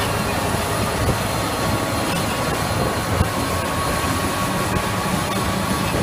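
Liebherr PR 764 crawler dozer working under load: its diesel engine runs steadily while the steel tracks clank and squeal and the blade shoves rock and earth.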